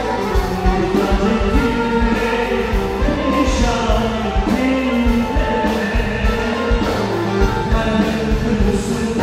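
Live Turkish pop music: a male singer singing into a microphone over a band with a steady drum beat, amplified through a concert sound system.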